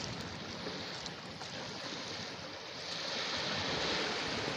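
Sea surf washing on the shore: a steady rush of noise that swells about three seconds in, with a few faint clicks.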